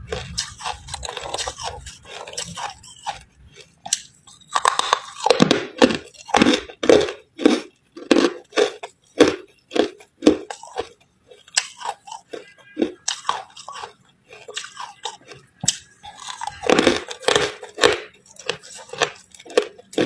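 A person biting and chewing ice: crisp crunches in quick runs of about two a second, thinning out in the middle and picking up again near the end.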